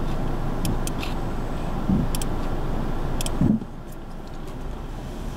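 Steady rumble of a car and road, heard from inside the vehicle in slow traffic, with scattered sharp ticks and two dull knocks. The rumble drops off suddenly about three and a half seconds in.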